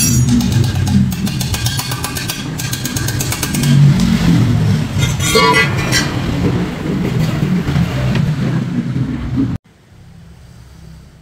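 Electric welding on a car's exhaust pipe: a loud crackling hiss over a low hum. It stops abruptly about three-quarters of the way through, leaving only a faint low background.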